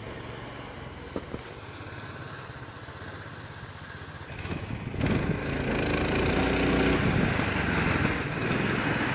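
A low steady hum with two light clicks about a second in. Then, about five seconds in, a much louder steady engine sound of a motor-dog, a small tracked towing tractor pulling a sled, running along a snow trail.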